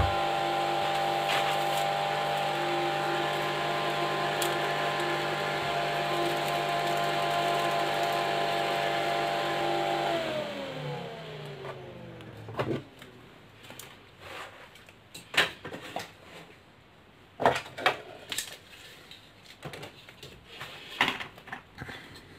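A 12-volt, 700 mA square axial cooling fan running at full speed with a steady whirring hum. About ten seconds in its power is cut, and the pitch falls as it spins down to a stop over about two seconds. After that come scattered clicks and knocks from handling the fan, its wires and a clamp meter.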